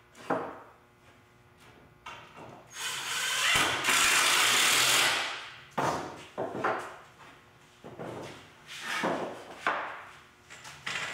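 Cordless impact driver sinking wood screws down through a plywood bench top into the 2x4 frame. There is one long run of about three seconds, the loudest part, then several shorter bursts.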